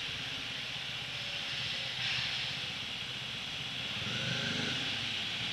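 Bajaj Dominar 400's single-cylinder engine running low and steady as the motorcycle rolls slowly, under a steady hiss, with the low rumble swelling slightly about four seconds in.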